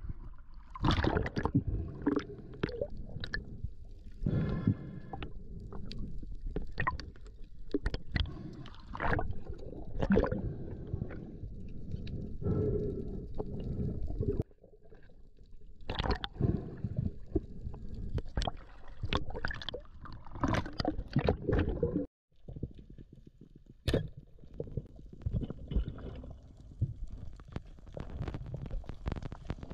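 Water gurgling and sloshing around a diver's waterproof-housed action camera, with many irregular knocks and splashes as he swims at the surface and dives.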